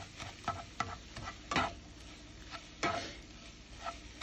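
Slotted spatula scraping and pushing scrambled eggs and salami around a frying pan in irregular strokes, about six of them, over a faint frying sizzle.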